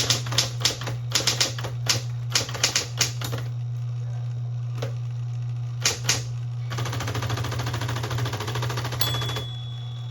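Smith-Corona Electra 210 electric typewriter: keys striking in irregular clusters over the steady hum of its motor. About two-thirds of the way through, the powerspace repeats in a rapid, even rattle of clicks for nearly three seconds, like machine-gun fire.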